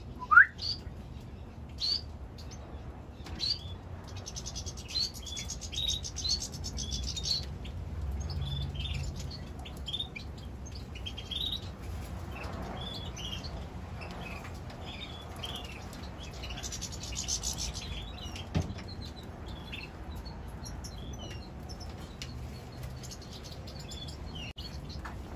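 Caged finches chirping: a steady run of short, high chip notes, with two stretches of rapid, buzzy trilling, one a few seconds in and one after about sixteen seconds.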